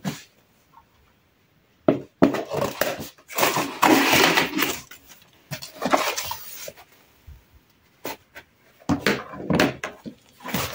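Cardboard parcel being torn open by hand, heard as several short bursts of tearing and rustling cardboard and packing tape.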